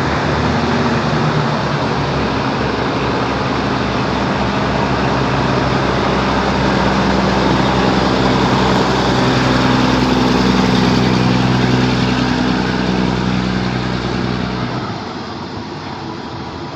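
Diesel railcar engines running, growing louder and a little higher in pitch for several seconds as the train moves off, then dropping away sharply near the end.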